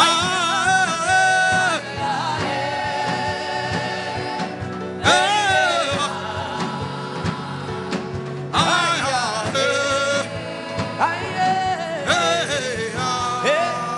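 Gospel worship music: a singer's long held, gliding phrases, a new one starting every few seconds, over a steady sustained instrumental backing.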